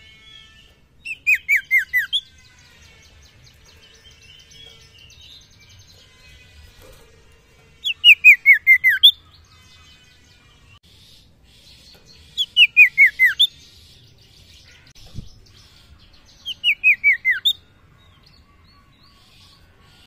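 Caged sirtu (iora) singing four short phrases several seconds apart, each a fast run of about six whistled notes that slide down in pitch.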